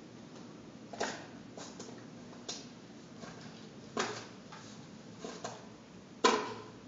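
Ragdoll kittens playing on and around a cat scratching post with tube tunnels on a tile floor: scattered light taps and four sharper knocks. The loudest knock comes about six seconds in.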